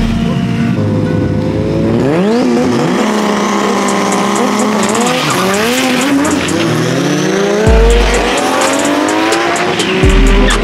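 Drag-racing car engines revving on the start line in several sharp rising-and-falling sweeps, then pulling hard down the strip, with the pitch climbing steadily near the end.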